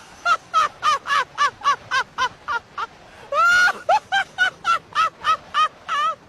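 A rapid series of short, high animal calls, about four a second, each rising and then falling in pitch, with one longer drawn-out call about three seconds in.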